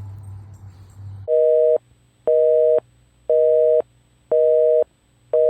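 Telephone busy signal: a two-tone beep, about half a second on and half a second off, sounding five times from about a second in.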